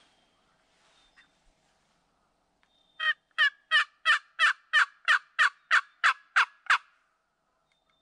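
A run of about a dozen turkey yelps, evenly spaced at about three a second, starting about three seconds in.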